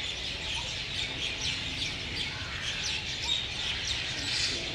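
Many small birds chirping together, a steady chorus of short high chirps.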